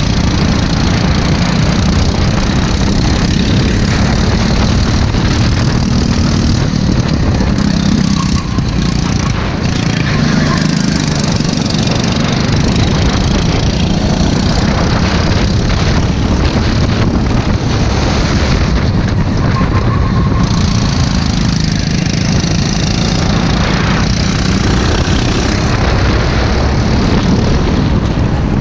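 Go-kart engine running hard, heard from on board the kart, its pitch dropping and climbing again as the kart brakes and accelerates through the corners, over a steady rush of wind and track noise.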